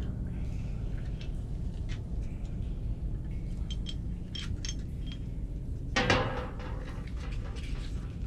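Light clicks and clinks of a metal tool against the neck of a glass bottle as a rolled paper note is fished out, over a steady low hum. A brief louder sound comes about six seconds in.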